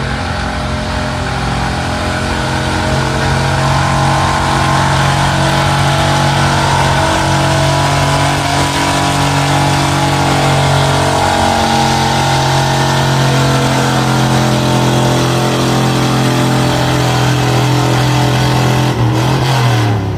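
Loud gas-engine pickup truck at full throttle pulling a weight-transfer sled, its engine held at high revs for most of the pull. Near the end the revs drop off as the truck stops.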